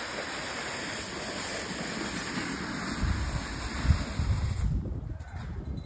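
Wind buffeting a phone's microphone: a steady rushing hiss with low thumps, which drops away sharply near the end.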